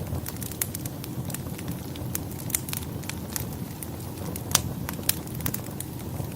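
Wood fire crackling in a fireplace: irregular sharp pops and snaps over a low steady rumble, the loudest pop about four and a half seconds in.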